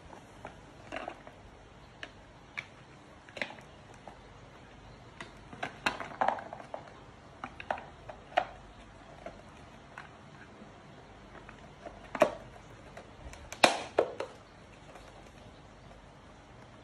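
Irregular clicks and knocks of the blender's plastic and metal parts being handled and fitted together during a motor replacement, with a louder clatter of a few knocks late on.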